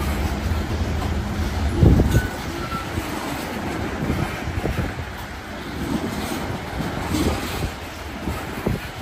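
Railroad freight cars rolling past, their wheels knocking irregularly over the track. A steady low rumble dies away after the loudest knock, about two seconds in.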